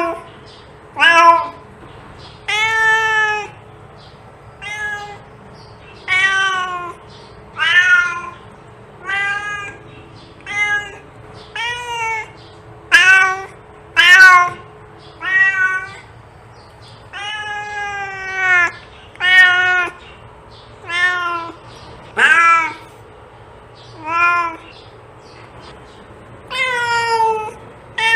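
Domestic cat meowing again and again, about eighteen calls at roughly one every second and a half. Most are short; a few are drawn out and fall in pitch at the end. A faint steady hum lies underneath.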